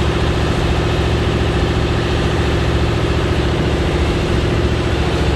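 A bumboat's diesel engine running steadily under way, with a fast, even chugging and water rushing and splashing off the hull.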